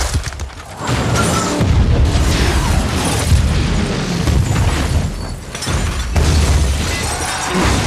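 Movie explosion sound effects: a big blast about a second in and another about six seconds in, each followed by a long, heavy low rumble with crackling debris, over the film's score.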